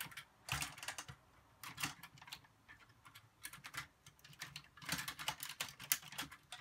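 Plastic Power Rangers Zord toy parts clicking and rattling as the Black Lion's last piece is fitted onto the Tigerzord's back. The clicks come in irregular short clusters, about one cluster a second.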